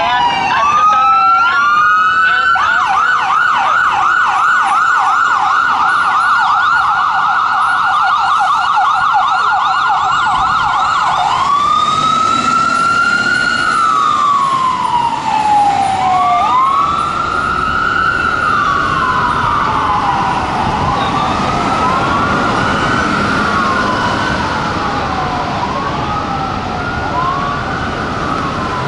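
Fire engine's electronic siren (Whelen 295) sounding while responding code 3. It wails briefly, switches to a rapid yelp for about eight seconds, then goes back to a slow rising and falling wail. In the last part the wail cycles overlap out of step.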